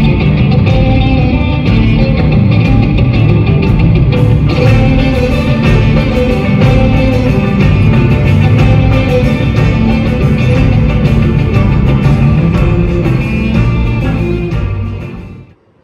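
Live orchestra-and-band music filling an arena concert hall, loud and continuous, cutting off abruptly near the end.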